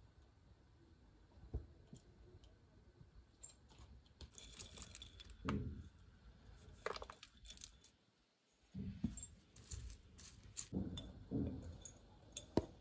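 Faint handling sounds as grain seeds are poured from a small glass jar onto a fibre mat in a clear plastic tray, with scattered light clicks and taps of glass and plastic.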